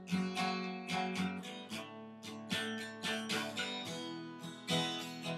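Acoustic guitar strummed in a steady rhythm, chords ringing under each stroke, with no singing.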